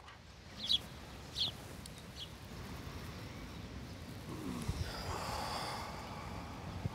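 Three short high chirps of a small bird in the first two seconds, then from about four and a half seconds in a man sniffing and breathing in deeply, close up.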